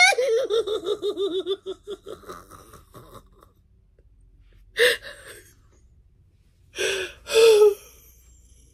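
A woman's wordless vocal sounds: a quick run of wavering, pulsing voiced sounds in the first two seconds, then short breathy gasps about five seconds in and twice near seven seconds.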